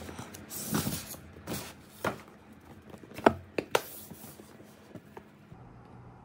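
Cardboard packaging being opened: a papery rustle as a printed sleeve slides off a box, then a few short sharp knocks, the loudest a little past the middle, as the box is handled on a wooden table and its lid is lifted.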